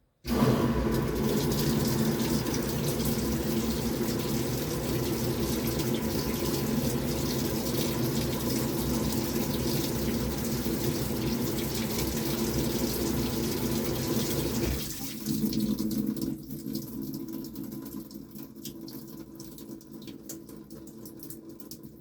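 Samsung top-load washing machine's water inlet valve opening with a sudden rush of water pouring into the tub, over a low hum. The flow cuts off about fifteen seconds in, leaving a fainter trickle that dies away.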